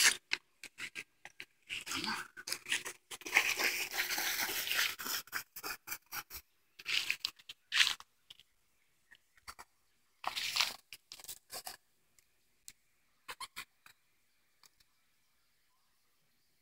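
Olde English Bulldogge puppies scuffling at play: irregular bursts of rustling and scraping with scattered clicks, thinning out to a few faint clicks after about twelve seconds.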